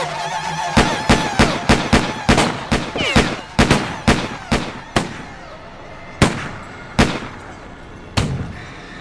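A volley of gunshots, about four a second for some four seconds, thinning to three single shots about a second apart near the end.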